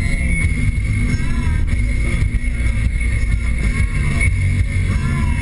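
Steady engine, road and wind noise of a 2013 Nissan Sentra SR with a CVT, heard from inside the cabin while it drives.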